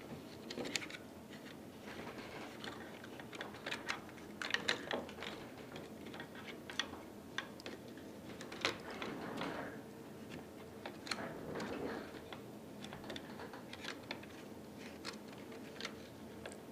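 Irregular small clicks, taps and scrapes of plastic parts and tools as a Syma X8C quadcopter is taken apart, with a few louder clusters of clicks along the way.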